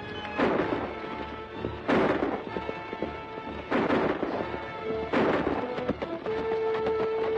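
Four gunshots with an echoing tail, spaced about one and a half to two seconds apart, over a dramatic orchestral score holding sustained notes.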